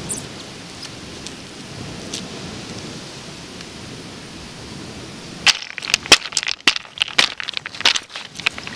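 A steady hiss of wind, then from about five and a half seconds in, rapid sharp clacks of rounded beach pebbles knocking and grinding together under high-heeled shoes stepping on them.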